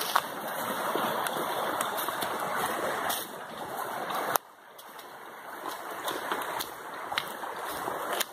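Small mountain creek rushing and splashing over rocks and little cascades, a steady noise. About halfway through it drops suddenly to much quieter, then builds back up.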